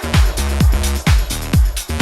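Electronic dance music with a steady four-on-the-floor kick drum, about two beats a second, over bass and synth chords.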